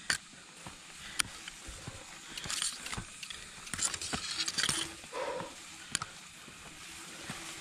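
Footsteps on a mountain hiking trail: scattered irregular knocks, with two brief bursts of hiss a few seconds in.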